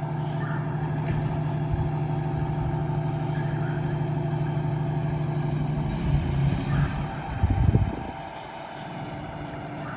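Fire ladder truck's engine running with a steady low hum. About six seconds in comes a short hiss, followed by a heavier low rumble for under a second before it settles quieter.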